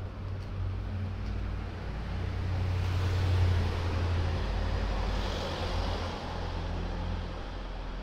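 Street traffic: a car passing close, its engine and tyre noise swelling from about two and a half seconds in and fading by about six seconds, over a steady low rumble.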